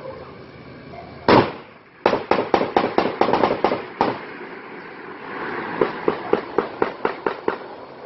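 Gunfire: one loud shot, then a rapid burst of about a dozen shots at roughly six a second, another single shot, and a second burst of about nine shots near the end.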